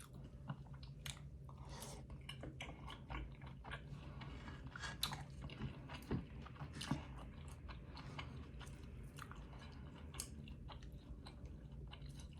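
A person chewing chili oil noodles and dumplings, with many short, irregular mouth clicks.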